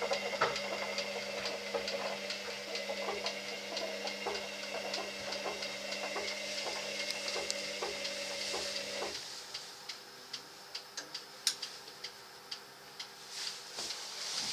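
Candy washer-dryer in its drying cycle: the drum motor hums steadily while the tumbling laundry makes irregular light clicks against the drum. About nine seconds in, the motor hum cuts off abruptly, as the drum pauses, leaving scattered faint ticks.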